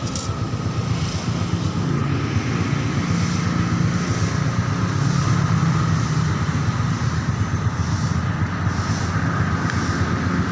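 Motorcycle engine running steadily, with a fast, even pulsing.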